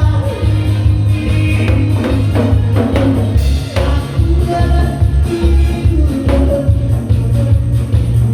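Loud music with a heavy, pulsing bass beat and regular drum strokes, with a melody line over it.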